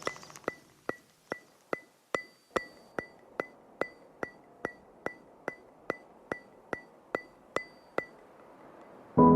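Background music track: a steady ticking, about two and a half ticks a second, each tick with a short high ring like a clock or wood block. The ticking stops after about eight seconds, and louder keyboard music starts near the end.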